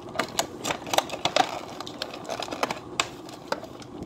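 Clear plastic packaging crinkling as it is handled: irregular crackles and clicks.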